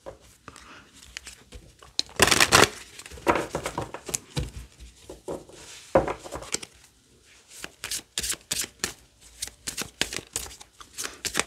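A deck of oracle cards handled and shuffled by hand: scattered rustles and slides of card stock, then quick clicking of card edges in the last few seconds.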